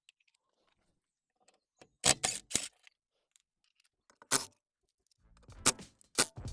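Three sharp clicks or knocks in quick succession about two seconds in, a single one a couple of seconds later, then quieter knocks and a low hum near the end.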